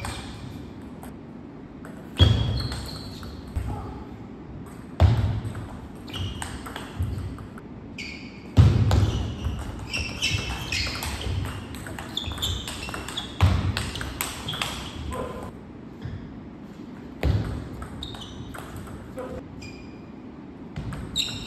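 Table tennis rallies: the plastic ball clicking off rackets and the table in quick runs, with shoe squeaks on the sports floor. Several heavy thumps land a few seconds apart.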